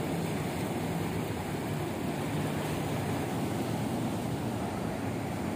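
Ocean surf: a steady rush of breaking waves, with no single crash standing out.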